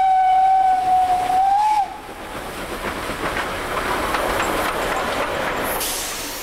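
Steam whistle of NSW 30 class tank locomotive 3112 blowing one long steady note that cuts off about two seconds in. Then the locomotive and its carriages run past close by with a rushing rumble that builds and fades, and a short hiss near the end.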